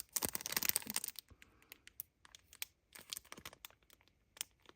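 Plastic merch packaging crinkling and clicking as it is handled, a dense patch of crackle in the first second, then scattered light clicks.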